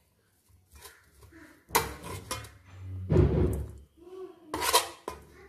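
Metal spoon scraping and clinking against a stainless steel bowl as roasted peanuts and fried vegetables are stirred together, in three bursts about two, three and four and a half seconds in.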